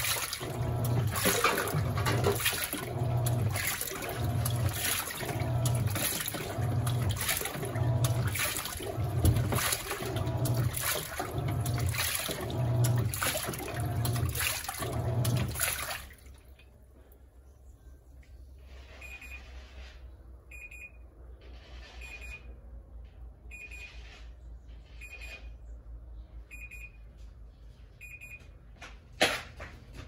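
Panasonic NA-F140B6 top-load washing machine agitating a load of work jeans in the rinse: the pulsator swishes the water back and forth about once a second with a low motor hum. The agitation stops abruptly about halfway through as the machine goes into its rinse soak, leaving a quiet water trickle with a faint short tone repeating about every second and a half.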